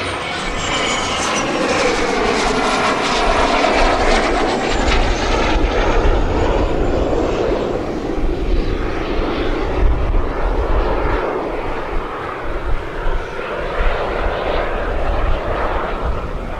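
Giant-scale RC L-39 Albatros jets with JetCat P-400 turbines flying past: a steady turbine roar with a high whine that slowly falls in pitch over the first several seconds.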